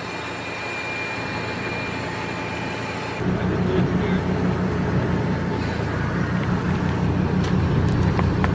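U-Haul box truck's engine running slowly at close range. About three seconds in it becomes a louder, steady low rumble.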